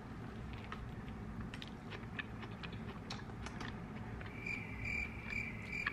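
Faint scattered clicks of chewing a mouthful of hot dog close to the microphone. A short run of high beeps, about three a second, starts past the middle and continues to the end.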